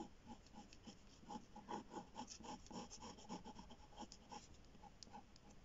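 Faint scratching of a ballpoint pen on paper, in quick, uneven strokes as a line is drawn.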